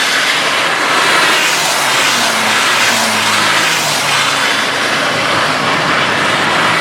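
Citroën C1 race car engine running under a steady, loud hiss of water spray and rain on a wet track, its pitch rising slightly a couple of seconds in.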